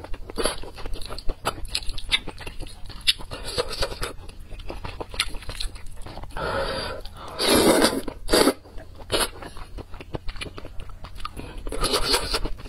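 Close-miked eating of noodles: wet chewing with many quick mouth clicks, and noodles slurped in a loud rush about halfway through and again near the end.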